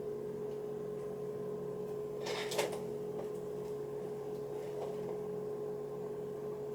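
Steady background hum made of a few constant tones, with one short hissing noise about two and a half seconds in.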